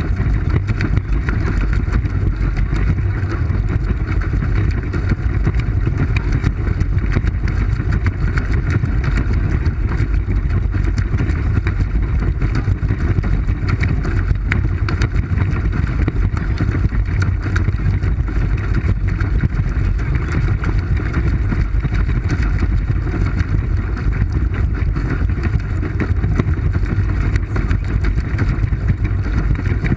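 Steady low rumbling noise aboard a moving pedal boat: water churning and wind buffeting the camera, without a break.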